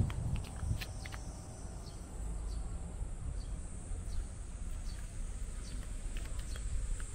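Steady high-pitched insect drone, with a low rumble underneath and scattered light clicks.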